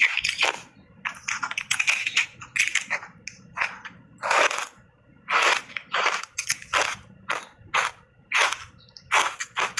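Refrozen block ice coated in milk powder being bitten and chewed close to the microphone: a rapid, irregular series of sharp crunches, about two a second.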